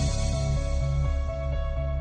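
Background music: electronic instrumental with a repeating bass line and sustained synth notes.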